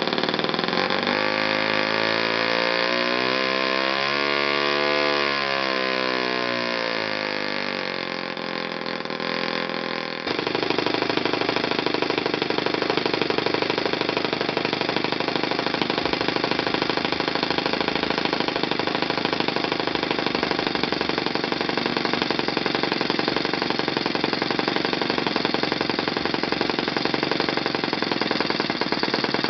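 Saito FA-30 single-cylinder four-stroke glow engine running after a cold start at −10 °C. Its speed rises and falls over the first several seconds. About ten seconds in the sound changes abruptly, and the engine then holds a steady speed.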